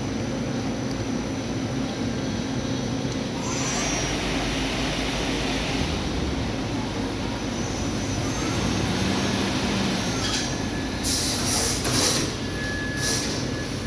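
Daewoo Puma CNC lathe running with its spindle at about 2,000 RPM: a steady machine hum. A hissing rush comes in about four seconds in, and short bright hissing bursts come near the end.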